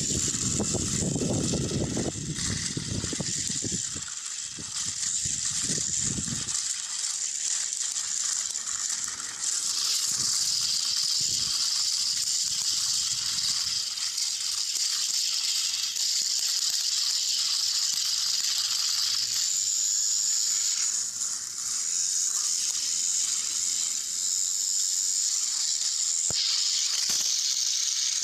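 Small electric motors of battery-powered toy train engines whirring in a steady high hiss as the engines push against each other. A low rumble runs under it for the first six seconds or so.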